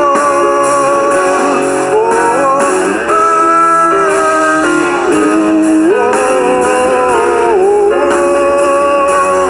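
Guitar-led band music: an instrumental passage between sung lines, with a melody of held notes that slide from pitch to pitch over the accompaniment.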